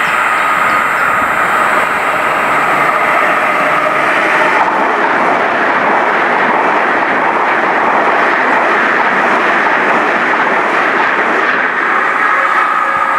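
Great Western Railway Hitachi Intercity Express Train (Class 800-series) passing at speed: a steady loud rush of wheels and air, with a thin whine near the start and again near the end.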